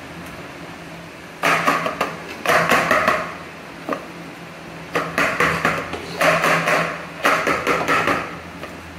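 Spoon scraping and knocking against a metal cooking pan in five short bursts with a single click between them, scraping out the thick cooked lauki barfi mixture.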